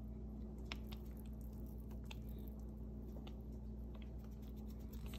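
Soft, scattered pats and small pops from a pot of simmering chicken and dumplings as shredded chicken is sprinkled in by hand, over a steady low hum.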